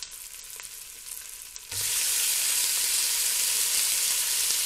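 Onions frying in oil in a stainless steel pot, sizzling softly with a few crackles; about two seconds in, tomato fillets go into the hot pot with a soft thud and the sizzling jumps suddenly to a loud, steady hiss.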